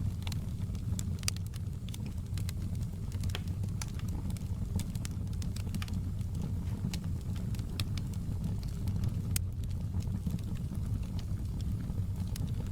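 Wood fire in a fireplace crackling: irregular sharp pops and snaps scattered over a steady low rumble of the burning.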